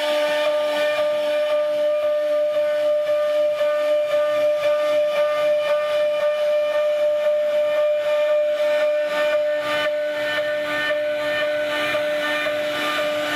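CNC router spindle running with a steady high-pitched whine while its bit cuts a relief pattern into a solid-wood door panel, with a hiss of cutting over it that rises and falls slightly as the bit moves.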